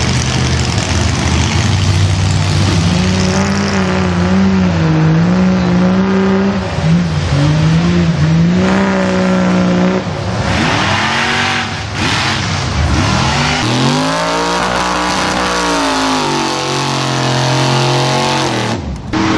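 An engine revving, its pitch rising and falling repeatedly, with a run of quick up-and-down sweeps about two-thirds of the way through.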